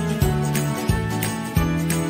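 Background music with a steady beat and a bass line that changes note on each beat, with a jingling bell-like percussion on top.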